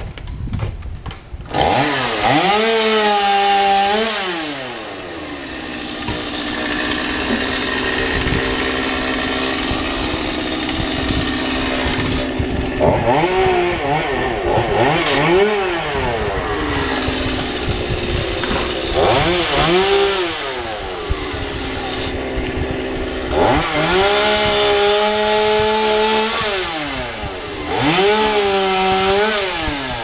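Two-stroke gas chainsaw running in a tree, revved up to full speed and let back down to idle several times, as in a series of cuts, with a steady idle between the bursts.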